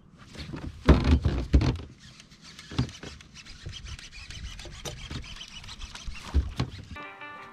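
A few loud knocks and thumps, with scraping and rustling between them. Background music comes in near the end.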